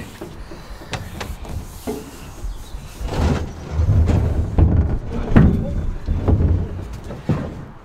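Large hollow plastic water tank being pushed through a narrowboat's stern doorway, knocking and scraping against the frame in a series of irregular dull thuds and sharper knocks.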